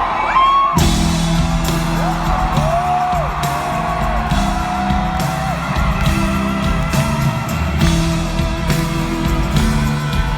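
Live band kicking in sharply about a second in with drums, bass and electric guitar playing a song's introduction. Sliding shouts rise over the music in the first few seconds.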